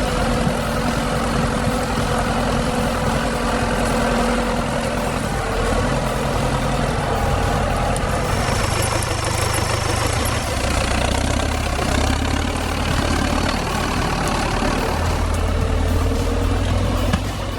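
Tractor diesel engine running steadily, its note shifting a few times as the load changes.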